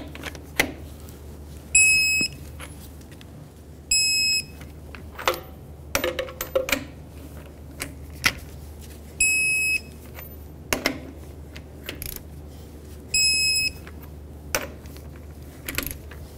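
Digital torque wrench beeping as each wheel lug nut reaches its set torque of 150 ft-lb: four short beeps of about half a second, unevenly spaced. Between the beeps come sharp clicks and clinks of the socket going onto the next lug nut.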